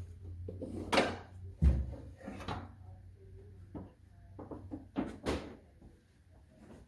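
A series of irregular knocks and clunks, with a heavier low thump a little under two seconds in.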